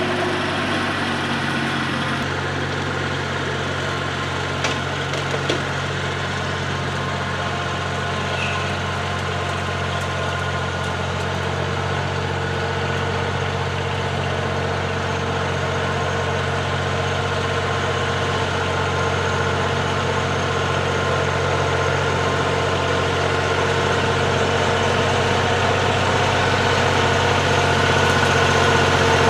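Tractor engine running steadily while shredding weeds out of sight, growing gradually louder over the last ten seconds or so. Two short knocks stand out about five seconds in.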